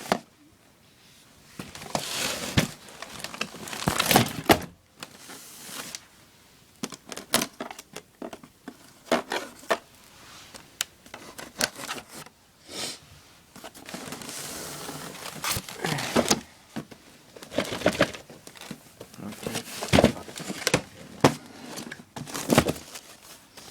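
Packing tape being picked at and peeled off a cardboard box in irregular crackling rips and rasps, with clicks and knocks from the box being handled.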